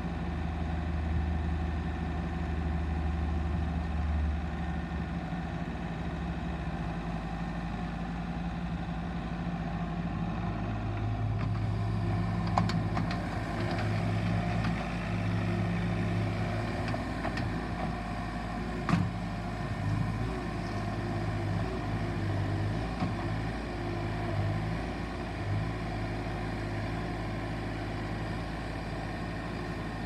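Bobcat S450 skid steer's diesel engine running as the machine drives and works its loader; the engine note steps up about ten seconds in and holds higher. A couple of sharp knocks come near the middle.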